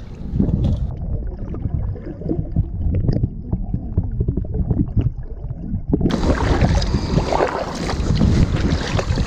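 Muffled sloshing and rumble of lake water heard with the camera held underwater beside a kayak hull. About six seconds in, the sound opens up suddenly as the camera comes into open air: kayak paddle strokes splashing, with wind on the microphone.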